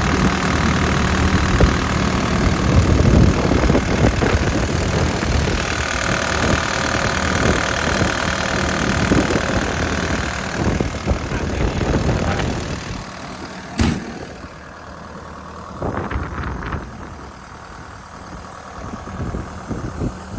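JCB JS130 track excavator's diesel engine running steadily up close. A single sharp knock comes about two-thirds of the way in, after which the engine sounds quieter.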